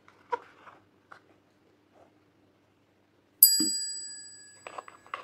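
A glass baking dish struck by a small plastic figurine rings out with a clear, high ding that fades over nearly two seconds. Light clicks and taps of handling come before it, and a few more small clicks come near the end.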